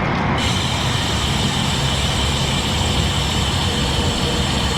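Steady wind rush and road rumble on the GoPro's microphone of a moving road bike. A thin, steady high hiss joins in just under half a second in.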